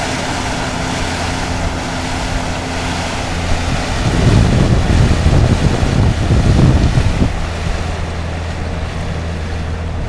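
Boat engine running at a steady hum while the boat moves over choppy river water. Wind buffets the microphone in gusts from about four seconds in, easing near the end.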